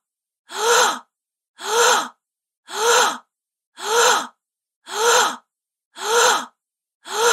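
A woman's short, voiced gasp, the same recording repeated about once a second, six or seven times, with silence between each one.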